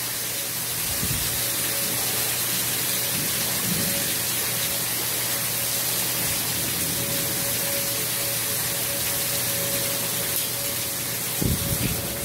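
Heavy rain pouring down on a backyard lawn and fence, a steady hiss of rainfall, with a faint steady tone behind it. A couple of low bumps near the end.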